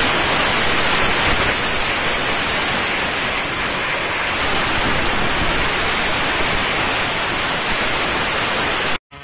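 Compressed-air blow gun hissing steadily as it blows debris off steel mold plates; the hiss cuts off suddenly near the end.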